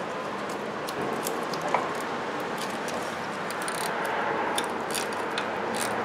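Ratcheting wrench clicking in short, irregular runs as it loosens the nut on a car starter's main power lead, over a steady background hiss.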